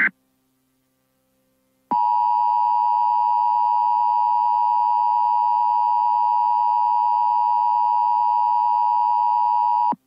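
Emergency Alert System two-tone attention signal (853 and 960 Hz sounded together). It is a steady, harsh tone that starts about two seconds in, lasts about eight seconds and cuts off sharply. It signals that a warning message, here a severe thunderstorm warning, follows.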